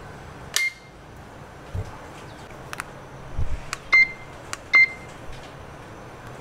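Electronic appliance control panel beeping: three short beeps as buttons are pressed, about half a second in and then twice close together near the middle, with light clicks and a couple of dull knocks between.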